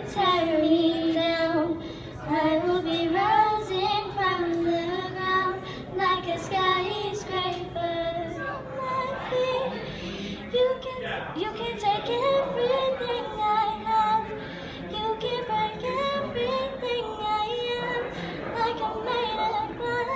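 A young girl singing a slow melody into a microphone, holding and gliding between long notes with short breaks between phrases.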